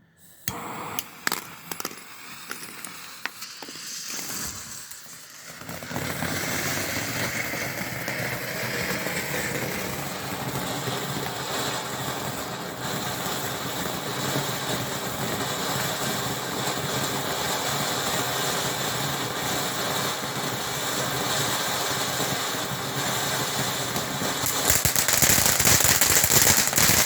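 Metallic fountain firework: a quiet fuse fizz and a few pops, then from about six seconds in the fountain sprays with a steady hiss, finishing in a louder burst of crackling for its last couple of seconds.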